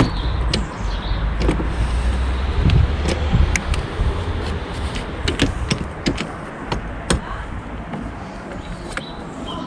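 Scattered sharp plastic clicks and small knocks as a door handle cable is worked into its guide on a car's interior door panel, over a low rumble that fades after about three seconds.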